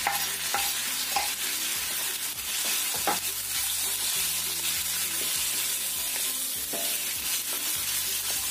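Chicken, carrot, sausage and fish balls sizzling in hot oil in a wok while being stir-fried with a wooden spatula. A few sharp knocks against the wok come in the first seconds and again about three seconds in, as the food is tipped in from a wooden board and stirred.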